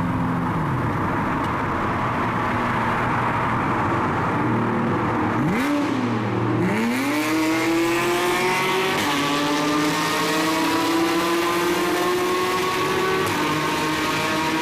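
Porsche 981 Cayman S's 3.4-litre flat-six running through an Armytrix valvetronic performance exhaust in a tunnel. It gives a quick throttle blip about five and a half seconds in, then pulls hard with the engine note climbing steadily, dipping slightly near the end.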